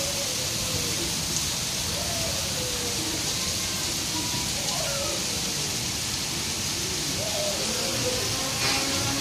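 Rain falling steadily, an even hiss, with faint wavering voices underneath.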